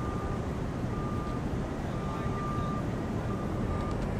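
Steady low rumble of outdoor urban vehicle and engine noise, with a faint high tone that sounds in short stretches on and off.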